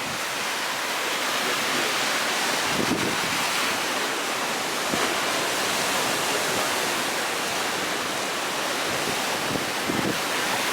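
Sea waves breaking and washing on the shore in a steady rush of surf, with wind buffeting the microphone in occasional low thumps.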